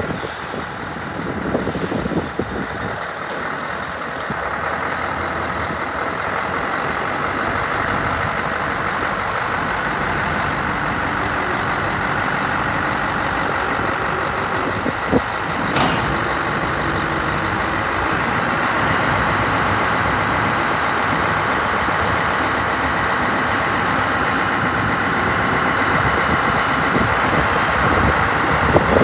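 Scania R164 truck's V8 diesel engine running as the hooklift truck pulls up, with a sharp air hiss from the brakes about halfway through. After that the engine runs steadily and a little louder while the hydraulic hook arm lifts.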